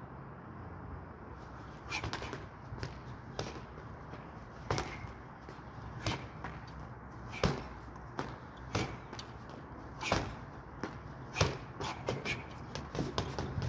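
Punches and kicks striking a small hanging bag. Sharp smacks start about two seconds in and come irregularly, roughly one or two a second, then turn into a quicker flurry near the end, over a steady low rumble.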